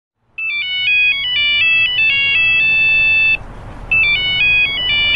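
Samsung smartphone ringtone for an incoming call: a high, chiming melody that starts about half a second in, breaks off briefly after about three seconds, then plays again.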